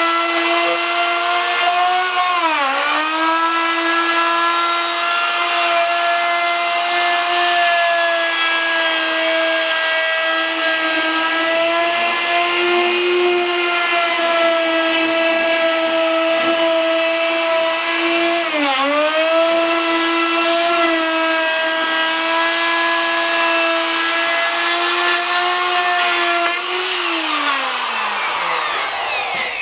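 Electric router running at speed while it routs the sink opening through a Formica-laminated countertop, a steady high whine. Its pitch sags and recovers twice, about three seconds in and again near two-thirds of the way through. The motor winds down near the end.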